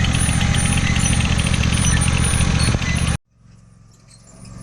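An engine of a piece of work machinery runs steadily close by, then cuts off abruptly about three seconds in. After a brief hush, a quieter engine hum rises back up.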